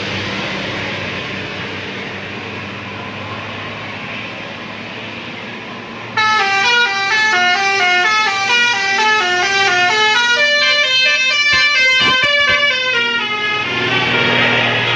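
Bus 'telolet' multi-tone air horn playing a quick stepping melody, cutting in suddenly about six seconds in and sounding for about seven seconds. Before and after it there is a steady rushing noise.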